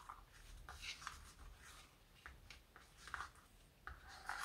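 Faint, intermittent rustling and scraping of a string being wound around the fasteners of a cardstock envelope closure.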